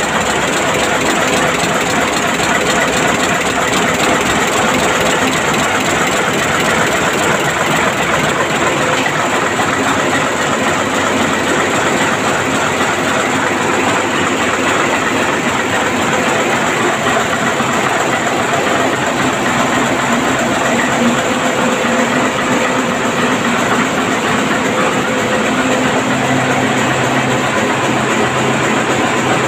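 Ship's diesel engines running steadily in the engine room: a loud, continuous mechanical din with a few steady tones in it. A deeper hum comes in near the end.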